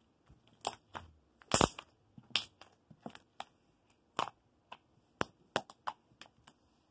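White homemade glue slime being pressed and squished by hand against a wooden floor, giving irregular sharp pops and clicks as air pockets burst, with one louder pop about one and a half seconds in.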